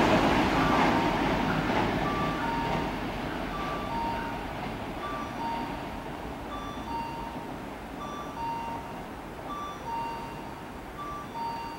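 The rumble of a train fades away over the first few seconds, and a repeating two-tone electronic warning signal sounds about once a second: a short higher beep followed by a longer lower one.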